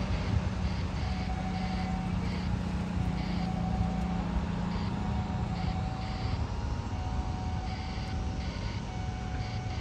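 Jet airliner engines rumbling steadily at a distance, with a low hum held for the first six seconds or so.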